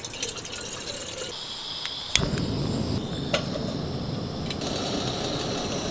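Water poured from a plastic bottle into a stainless steel camping kettle, then a sharp click about two seconds in and the steady hiss of the camp stove's gas burner heating the kettle.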